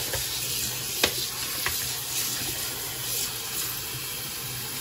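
Tap water running steadily onto blanched cabbage in a stainless steel colander, splashing as a hand turns the cabbage under the stream. There are a few sharp knocks in the first two seconds.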